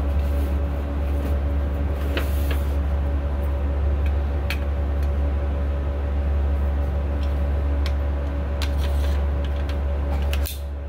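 Steady low rumble of an indoor shooting range's ventilation, with scattered faint clicks and light knocks. The rumble drops off abruptly just before the end.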